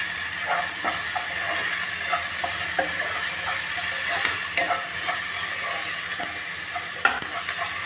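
Chopped onions and green chillies sizzling in hot oil in a non-stick pan over a high flame, stirred with a wooden spatula that scrapes and knocks against the pan several times a second. The onions are being fried soft with a little salt.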